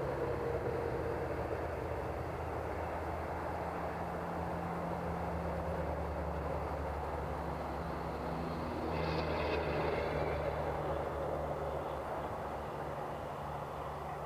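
FMS T-28 Trojan RC warbird model running on the ground, its motor and propeller turning at low power with a steady low engine rumble, which swells briefly about nine seconds in with a short higher whine.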